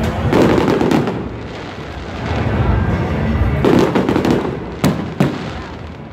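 Aerial firework shells bursting overhead: deep booms with crackling about half a second in and again near four seconds, then two sharp bangs in quick succession about five seconds in.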